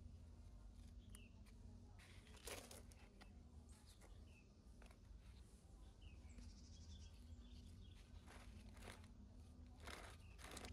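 Near silence: faint outdoor ambience with a few small bird chirps and several brief rustling or crunching noises, the clearest about two and a half seconds in and near the end.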